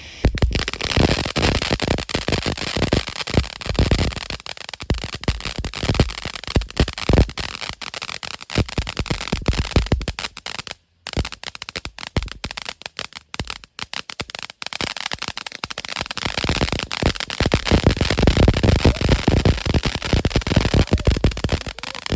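Kaboom Jumpin' Jewels firework fountain crackling: a dense, rapid stream of loud pops and crackles, broken by a short gap about halfway through.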